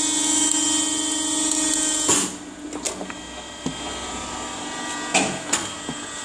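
Hydraulic wire rope swaging press running with a steady hum that cuts off about two seconds in. Then come a few sharp metal clanks as the steel rope and die are handled.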